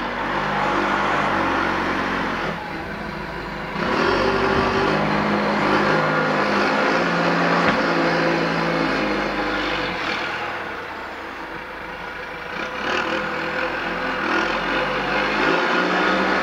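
Payloader (wheel loader) diesel engine working and revving up and down as it clears snow, its pitch stepping between speeds. It grows louder about four seconds in, eases off for a few seconds past the middle, then picks up again near the end.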